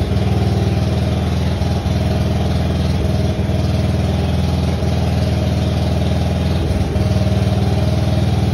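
Engine-driven welder's engine idling steadily.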